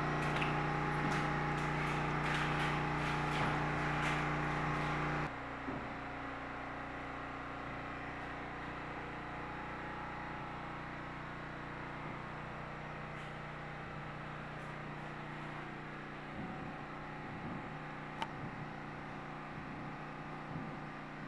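Steady machine hum with a low tone, which drops abruptly to a quieter hum about five seconds in; a few faint clicks and handling noises near the end.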